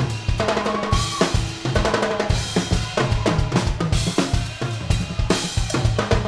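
Live rock band playing, with a drum kit to the fore: fast, busy snare, kick drum and cymbal hits over a bass line and held instrument notes.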